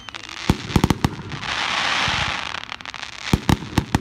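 Aerial fireworks going off: a quick string of sharp bangs, then a hiss of about a second and a half, then another cluster of bangs near the end.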